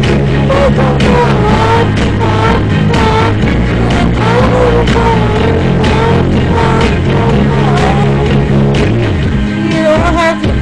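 Pop song playing: a full band backing under a wavering melody line. The bass drops out briefly near the end.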